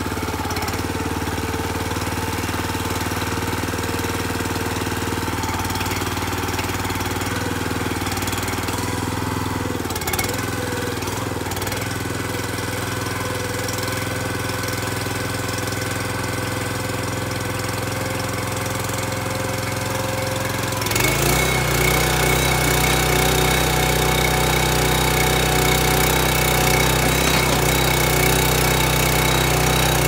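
Small single-cylinder gasoline engine of a portable mini backhoe running steadily. About twenty seconds in, the engine sound steps up louder and fuller, with a new high steady whine over it.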